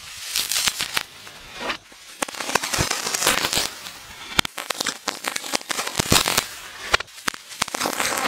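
Burning firework sparks crackling and hissing: irregular hissing bursts with many sharp snaps and pops.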